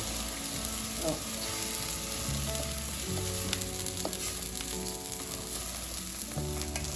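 Arborio rice for risotto sizzling in a hot pan just after the wine has gone in, being stirred with a spoon, with a few light clicks. Soft background music plays underneath.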